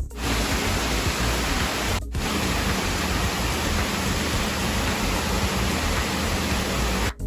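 Steady rushing water noise, cutting out briefly about two seconds in and stopping abruptly near the end.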